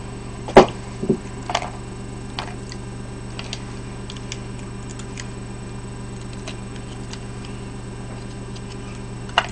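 A small plastic condiment packet being handled and torn open: one sharp click about half a second in, two smaller ones just after, then faint, scattered ticks over a steady low hum.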